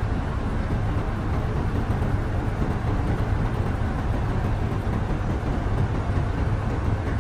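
Steady, deep rumble of heavy machinery running, even in level and pitch throughout.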